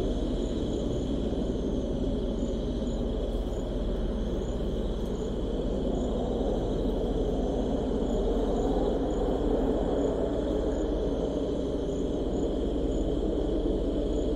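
Steady low rumble of wind, with crickets trilling faintly above it in an even high tone and scattered higher chirps.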